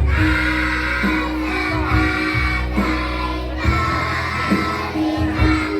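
A choir of young children singing along to backing music with a steady beat.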